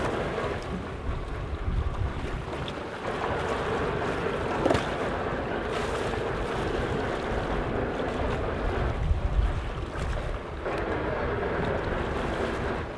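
Sea water splashing and sloshing against the hull as a large roosterfish is held alongside the boat to revive it before release, with wind rumbling on the microphone. A sharper hit stands out about five seconds in.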